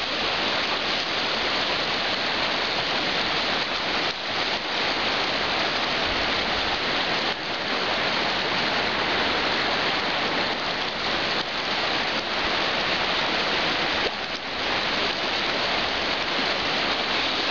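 Fast-flowing river rushing over its stony bed: a steady, even hiss of water.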